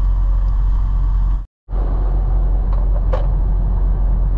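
Semi-truck engine and road noise heard inside the cab: a steady low drone. It cuts out completely for a moment about a second and a half in.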